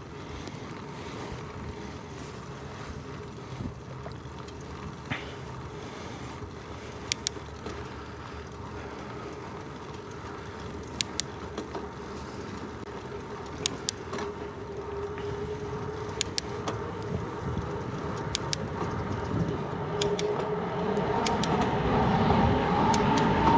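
Steady rush of tyres and wind from a bicycle rolling along a road, with scattered sharp clicks and knocks. A motor vehicle sound swells louder over the last few seconds.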